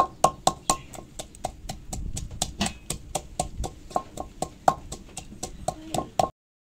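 Wooden pestle pounding chopped ginger in a terracotta clay mortar: quick, regular knocks, about four a second, each with a brief ringing note from the clay bowl. The knocking stops abruptly near the end.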